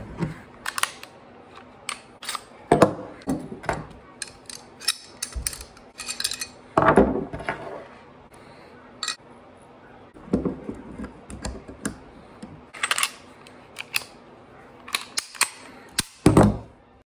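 Handgun being field-stripped and put back together: irregular metallic clicks and clacks of the slide, barrel and frame being handled and set down on a wooden table, with a few louder clacks spread through.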